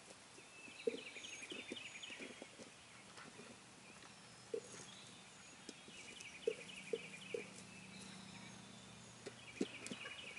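Irregular knocks and thumps of two wild turkey gobblers striking and pecking at a strutter decoy. A songbird repeats a short chirping phrase in the background three times.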